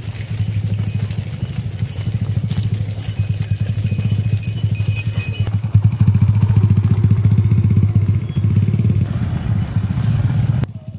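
Small engine running steadily with a rapid, even pulsing beat. It gets somewhat louder about halfway through and cuts off abruptly near the end.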